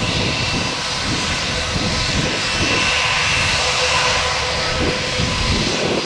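Airbus A320-family airliner's twin jet engines running as it rolls on the runway: a steady roar with a high whine on top, growing a little louder about halfway through.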